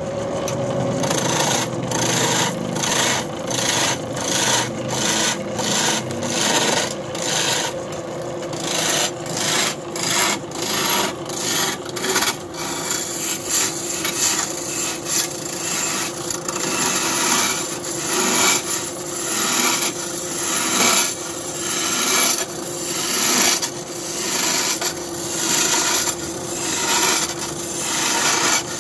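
Hand chisel cutting into a block of wood spinning on a belt-driven electric wood lathe: a rough scraping rasp that swells and fades with each pass of the tool, about one to two passes a second, over the steady hum of the lathe running.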